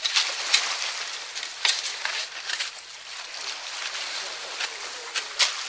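Several shovels scraping and crunching into oil-coated beach gravel, in irregular overlapping strokes.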